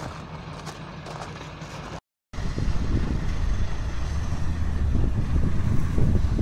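Footsteps crunching through snow, then, after a short break, a heavy truck's engine running loud and low under load as the truck works through deep mud.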